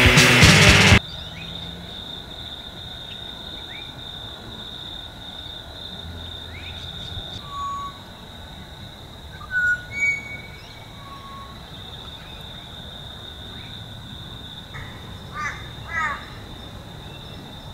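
Loud rock music cuts off about a second in, leaving rural outdoor ambience: a steady high insect drone, with scattered bird calls and chirps. Two louder calls come just before the middle, and a quick run of calls comes near the end.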